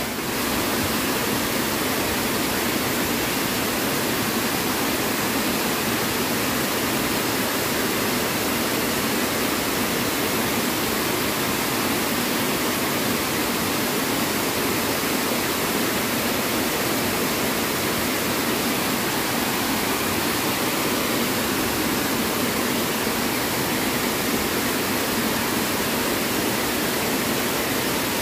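Water spilling over a river weir and crashing into the pool below, a steady, unbroken rushing.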